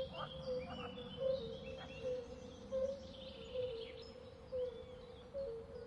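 Birdsong: several small birds chirping and whistling in quick overlapping phrases, with a short low note repeating about twice a second underneath.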